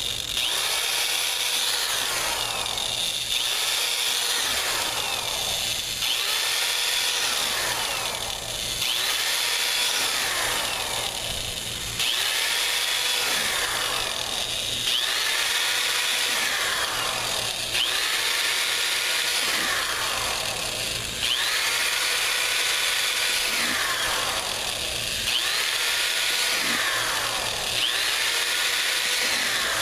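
Electric drill boring pilot holes in a plastic fan shroud, its motor whining up to speed and winding down again over and over, roughly every two seconds.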